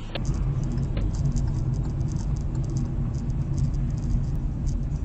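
Car driving, heard through a dashcam inside the cabin: a steady low engine and road rumble with light, irregular clicking over it.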